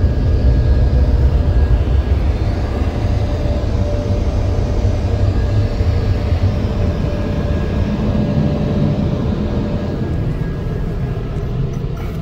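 Car wash tunnel dryer blowers running with a loud, steady rush of air, heard from inside the car. It fades slightly toward the end.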